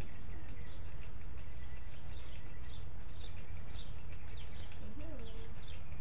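Steady hiss of lawn-sprinkler spray falling on the grass, over a steady low rumble, with small birds chirping in short falling notes again and again.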